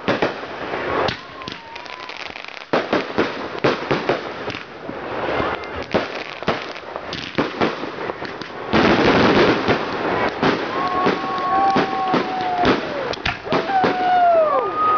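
Fireworks going off: a quick run of bangs and crackles from bursting shells, then about nine seconds in a loud hissing as a barrage launches from the ground, with several whistles, some held steady and others falling in pitch near the end.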